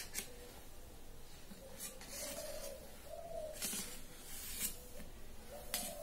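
Hand-eating sounds: a few sharp clicks and smacks as rice and fried brinjal are picked up by hand from steel plates and eaten. Several short, low hooting tones, each about half a second long, sound in the background.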